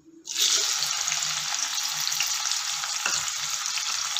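Chopped tomatoes and curry leaves dropped into hot ghee: a loud sizzle that starts suddenly a fraction of a second in and then goes on steadily, with a few faint knocks.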